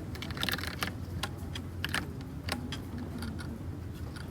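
Typing on a Dugard x Thinkway Toche F mechanical keyboard with red linear switches: irregular, quick keystroke clicks.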